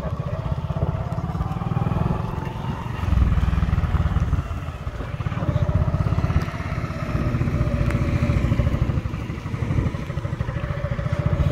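A two-wheeler's small petrol engine running under load, with its revs rising and falling every second or two.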